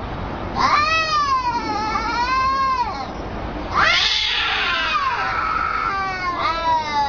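Domestic cat yowling in long, wavering howls that rise and fall in pitch: three drawn-out calls, the middle one louder and harsher. It is the threatening caterwaul of a cat facing down a rival.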